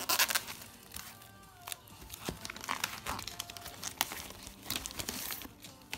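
Clear plastic wrapping and a plastic sleeve crinkling as wrapped CD cases and a booklet are handled and drawn out of a cardboard box, in irregular bursts of crackle, loudest just after the start.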